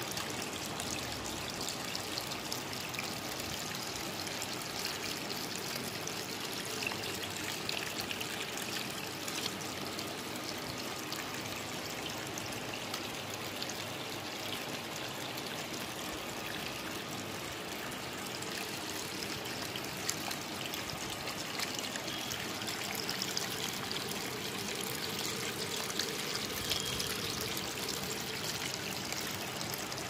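Water trickling and pouring steadily in a small homemade tabletop waterfall, running down over a Shiva lingam into cut plastic bottles.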